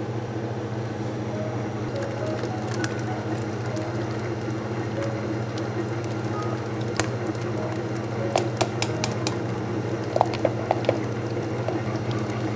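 Electric stand mixer running at a steady speed, its flat beater working eggs into cream cheese batter in a stainless steel bowl: an even motor hum, with a few light ticks in the second half.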